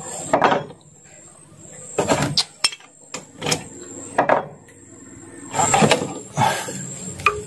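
Metal tools and outboard motor parts clinking and knocking in short, scattered bursts while the engine is being taken apart.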